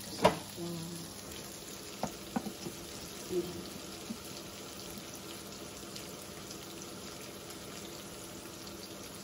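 Tomatoes and red onion frying in oil in a pan, a steady gentle sizzle. A sharp knock sounds just after the start, with a few smaller knocks about two to three and a half seconds in.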